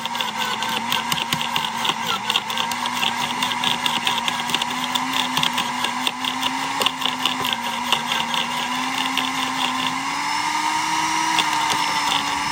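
Sun Joe CJ603E 15-amp electric wood chipper running, its blade chipping branches with a rapid, irregular crackle over the motor's steady hum. About ten seconds in the crackling stops and the motor's hum rises in pitch as it runs free.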